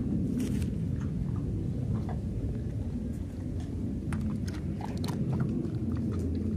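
A dog licking raw chicken breasts in a plastic tray: scattered wet tongue clicks and smacks, over a steady low rumble.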